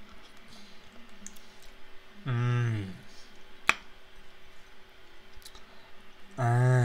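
Metal spoon clicking and scraping against a bowl while eating ice cream, with one sharp click a little past halfway. Twice, about two seconds in and at the very end, a man gives a short hum of enjoyment that falls in pitch.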